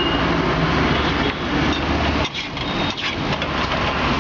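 Street traffic noise with a motor vehicle engine running close by: a steady low hum under a dense hiss.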